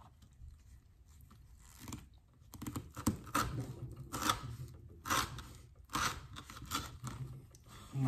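A knife blade slicing through 3/4-inch manila rope, in a series of about seven short, fibrous crunching and tearing strokes, irregularly spaced and starting about two seconds in, as the rope fibres are cut.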